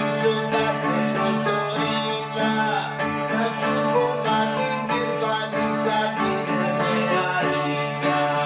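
Bouzouki playing a rebetiko melody in quick plucked notes.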